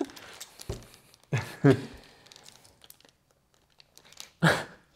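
Small plastic component bag crinkling and plastic game tokens being handled, with two short, louder noises, one about a second and a half in and one near the end.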